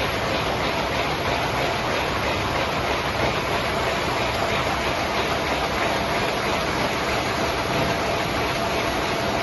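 Web finishing line with an MBO FC23 UV flood coater running in line: an even, dense machine noise with a steady whine through it, unchanging throughout.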